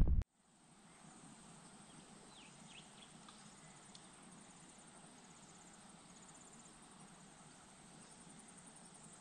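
Quiet bush lakeside ambience: a steady high insect trill that pulses in stretches, with a few short bird chirps about two to three seconds in. It opens with a brief loud burst of underwater noise that cuts off abruptly.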